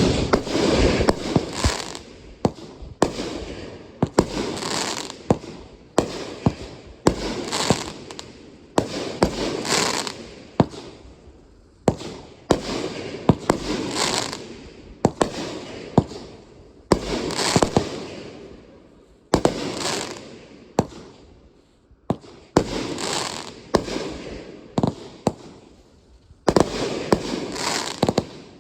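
Consumer aerial fireworks going off in quick succession: sharp bangs about once a second, each trailing off in a fading rush of noise.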